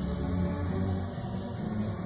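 Live bowed string music, mostly low held notes.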